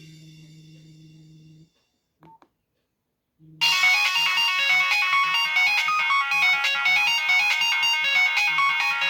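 Nokia 1280 ringtone playing through the phone's small speaker. It starts suddenly about three and a half seconds in as a fast, busy melody of many quick notes over a pulsing low note. Before that there is a faint low hum, then a pause broken by one short blip.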